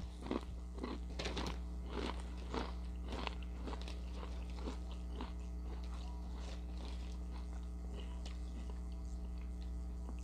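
Ritz Toasted Chips being bitten and chewed close to the microphone. A crunch comes about every half second; the crunches are loudest in the first few seconds and grow fainter as the mouthful is chewed down.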